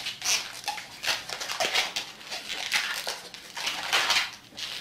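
A 160 latex twisting balloon rubbing against itself and the fingers as it is twisted by hand into small bubbles, in a series of irregular strokes.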